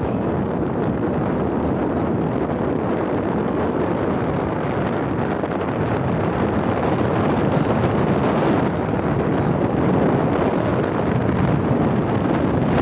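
Steady wind rushing over the microphone of a moving motorbike rider's phone, with road and vehicle noise beneath.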